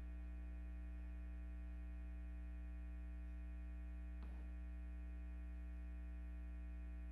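Steady electrical hum, a low tone with a stack of buzzy overtones, typical of mains hum in a sound system or recording feed. A faint short sound comes about four seconds in.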